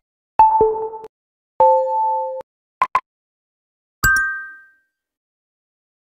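ColorOS 13 message and alert tones previewed one after another through the phone's own audio: a quick falling two-note chime, a held two-note electronic tone, two short blips, then a bright ding about four seconds in.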